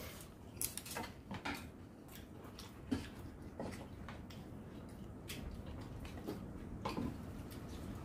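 Chopsticks and spoons clicking and scraping against bowls as people eat: scattered light clicks, a few close together in the first second or two and then more spread out.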